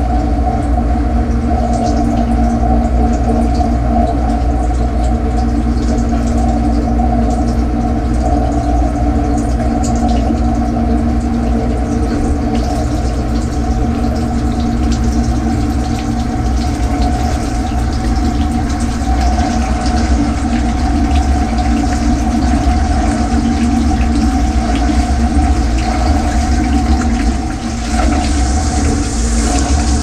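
Portable dishwasher's wash pump running, heard from inside the tub: a steady hum with a low rumble under it, with water spraying and sloshing against the racks and walls. The hiss of spray grows louder near the end.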